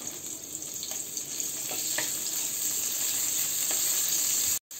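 Chopped onion sizzling as it fries in hot mustard oil in a frying pan, stirred with a wooden spatula that gives a few light knocks and scrapes against the pan. The sound cuts out abruptly for a moment near the end.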